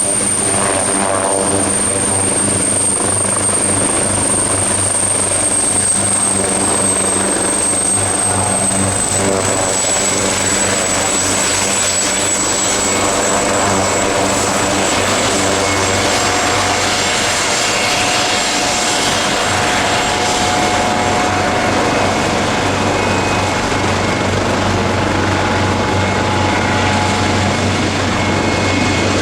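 Leonardo AW139 twin-turbine helicopter running close by: a steady loud roar of turbines and rotor with a high turbine whine, which drops slightly in pitch about nine seconds in.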